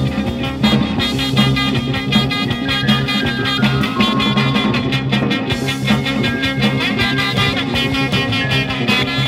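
Instrumental band music with a steady beat and sustained notes, with no singing.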